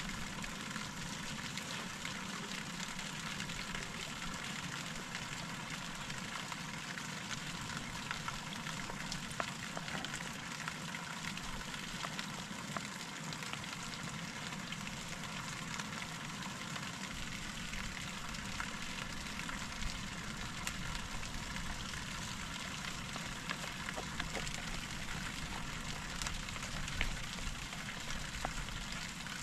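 Food frying in a pan, a steady sizzle with many small crackles and pops.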